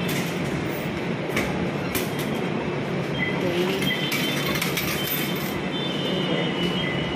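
Busy LRT station ambience: a steady low hum with background voices and a few clicks and clinks, and a high steady tone from about three seconds in.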